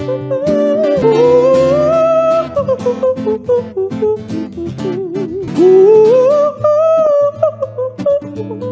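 Music: a plucked guitar accompaniment with a melody sliding up and down in pitch over it.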